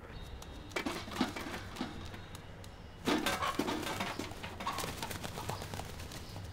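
A rooster making soft, short calls among scattered knocks and clatter.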